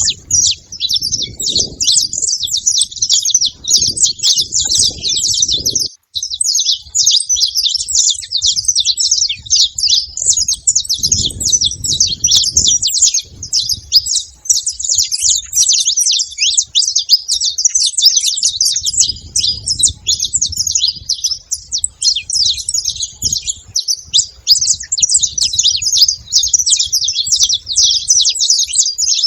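Several saffron finches chirping and singing together in a dense, unbroken high-pitched twittering.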